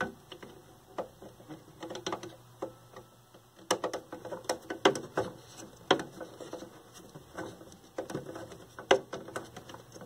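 Irregular small clicks and taps of a hand tool working on one of the quarter-inch nuts that hold the tuner assembly in an old television chassis, with a few louder sharp clicks.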